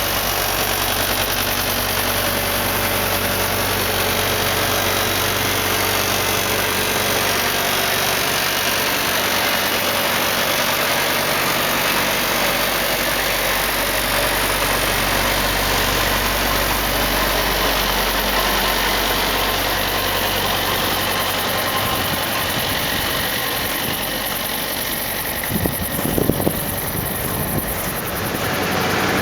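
Combine harvester running steadily while harvesting wheat, with a few brief louder knocks near the end.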